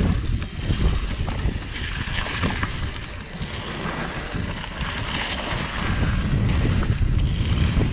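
Wind buffeting the handlebar-mounted action camera as a Trek Fuel EX full-suspension mountain bike rolls quickly down dirt singletrack, with the tyres running on hardpack and faint knocks from the bike over bumps.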